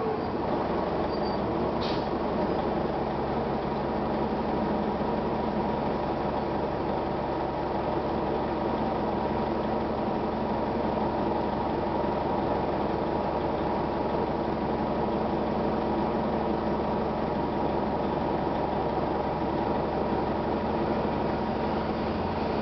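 The Detroit Diesel Series 50 engine of a 1999 Gillig Phantom transit bus runs steadily at an unchanging speed. A single short click comes about two seconds in.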